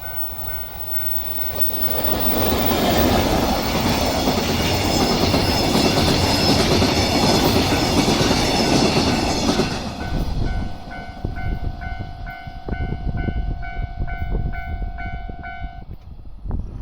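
Level-crossing warning bell ringing at about two strokes a second while a train passes over the crossing with a loud rumble for about eight seconds. After the train has gone the bell rings on alongside a steady tone, then stops suddenly near the end.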